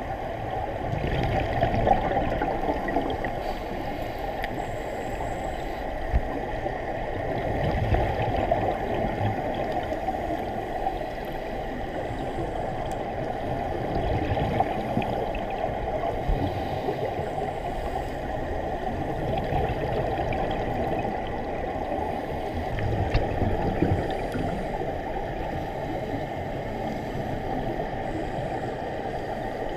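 Scuba divers' exhaled bubbles from their regulators, heard underwater as a dull bubbling rumble that swells every five or six seconds with each breath.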